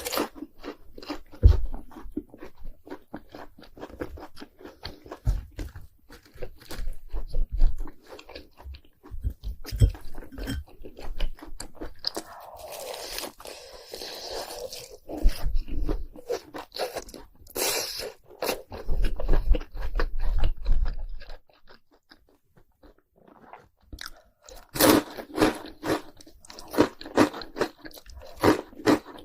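Close-miked crunching and chewing of fried cheese balls coated in crushed Hot Cheetos, one crisp bite and crunch after another. There is a short pause about three-quarters of the way through, and then a run of loud crunchy bites.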